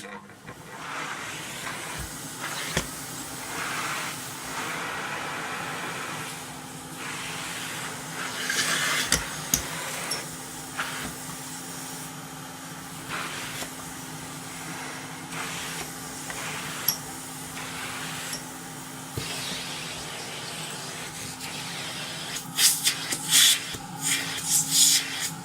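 Vintage Nilfisk GA70 canister vacuum cleaner starting up and running: a steady motor hum under a hiss of suction that swells and fades as the tool moves. A few sharp clattering knocks near the end.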